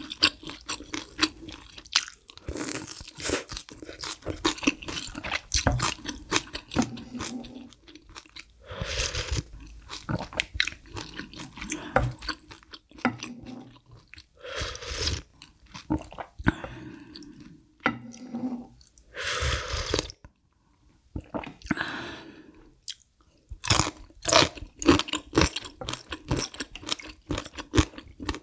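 Close-miked eating of malatang noodle soup: chewing with short crunchy clicks, and several slurps of broth and noodles from a wooden spoon, each lasting about a second.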